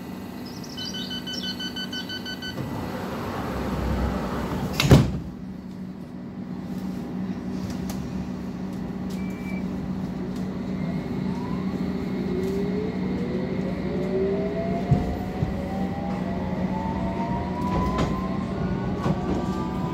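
London Underground District Line train in the station: a short run of door-warning beeps, a rushing hiss, then the doors shut with one loud sharp knock about five seconds in. The train then pulls away, its motors whining in several tones that rise in pitch as it gathers speed, over a steady hum from inside the carriage.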